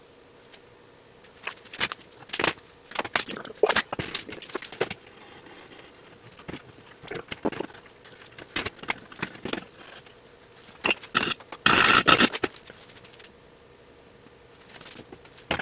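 Steel parts being handled and adjusted on a workbench: scattered clinks, knocks and light scrapes, with one louder scraping rattle about twelve seconds in. A faint steady hum runs underneath.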